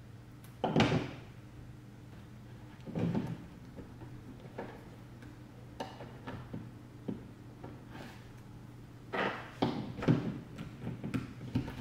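Hands working small parts and wiring at a gel blaster's motor on a tabletop: scattered knocks and clicks, the strongest about a second in, around three seconds in, and in a cluster near the end.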